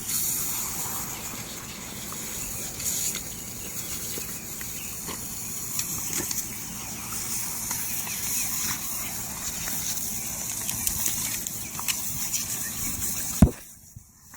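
Water spray from a lawn sprinkler hissing steadily, with scattered light ticks. A single sharp knock comes near the end, and the sound drops away briefly just after it.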